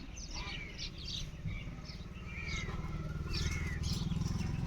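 Small birds chirping softly: a scattering of short, curved tweets, over a low steady hum.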